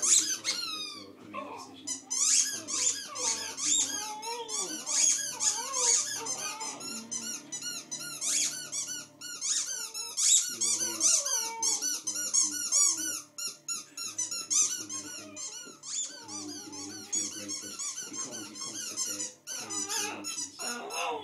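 Pet dog howling and whining in wavering, drawn-out cries, with many rapid high-pitched squeaks.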